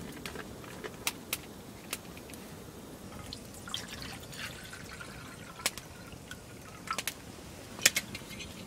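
Water poured from a plastic water bottle into a small metal camping pot, a short trickling pour about halfway through. Sharp clicks come before and after it, the loudest one near the end.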